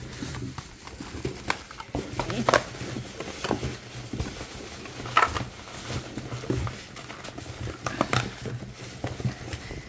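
Hands handling a cardboard trading-card booster box and foil booster packs: irregular light rustles, taps and clicks over a low steady hum.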